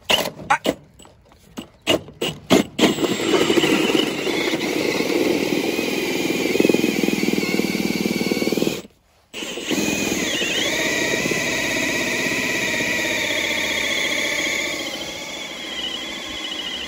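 Milwaukee Fuel brushless cordless drill turning a hole saw through vinyl siding into the wood behind it. It starts with several short trigger bursts, then drills steadily, stops briefly about nine seconds in, and runs on with a wavering high whine. By then the saw is through the wood and spinning without cutting further.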